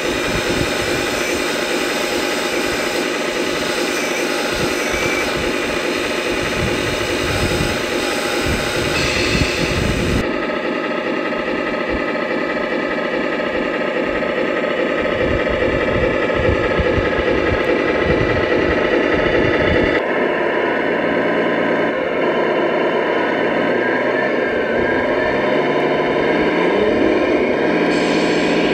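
Radio-controlled semi truck and electric-hydraulic excavator models running: a steady mechanical hum and whine with many fine tones. The sound changes abruptly about ten and twenty seconds in, and a tone rises near the end.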